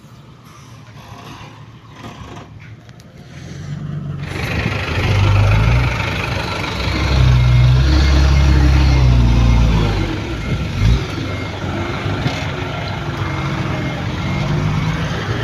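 Heavy diesel earthmoving machinery. It is quieter at first, then swells about four seconds in and works hard with a deep drone for a few seconds before settling to a steady run. There is a single sharp knock near the eleven-second mark, and a faint repeating beep sounds over the second half.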